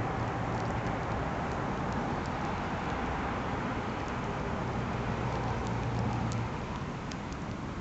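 Campfire burning, with scattered sharp crackles and pops over a steady low rumble that eases off about six and a half seconds in.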